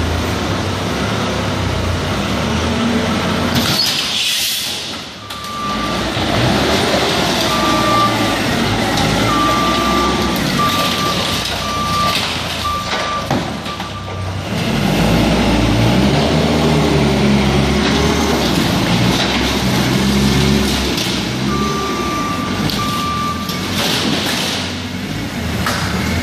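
Forklift engine running and revving up and down as it maneuvers, with its backup alarm beeping in two spells. A crash of the wall giving way about four seconds in.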